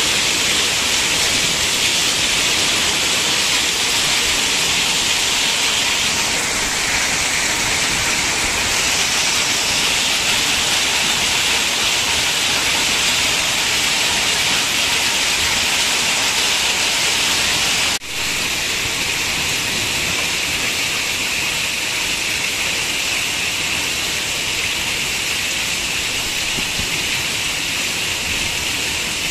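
Hail mixed with rain pelting a paved street and the rooftops, a dense steady hiss. Partway through it cuts out for an instant and comes back a little quieter.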